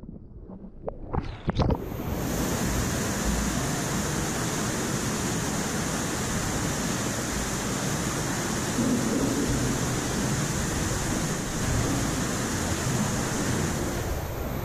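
Splashing and muffled water sounds as a rider plunges into a pool, then a steady rush of water streaming down a funnel (vortex) water slide.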